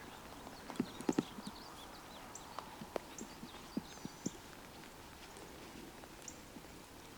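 Footsteps of people walking on foot over rough ground, irregular knocks and scuffs, most pronounced about a second in. Short high bird chirps repeat in the background.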